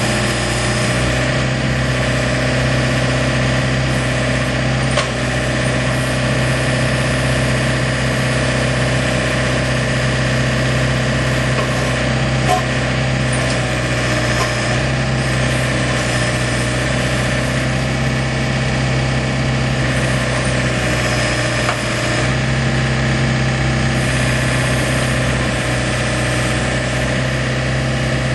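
Diesel engine of a John Deere 110 compact backhoe loader running steadily at a constant speed, with a few faint clicks and a brief dip in level about three-quarters of the way through.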